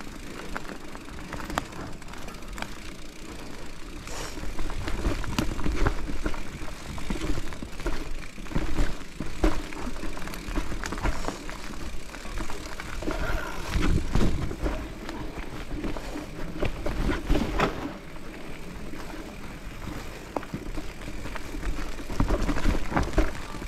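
Mountain bike being ridden over a rough natural forest trail: tyres rumbling over dirt, roots and rocks, with the bike rattling and knocking many times along the way.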